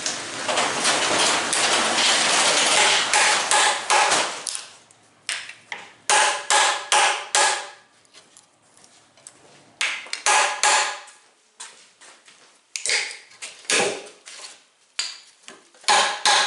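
Steel claw hammer striking a chisel to knock out the waste between saw kerfs in a white oak lap joint: sharp, ringing blows in short clusters of two to five, with brief pauses between. The first few seconds hold a dense, continuous rough noise of the tool working the wood.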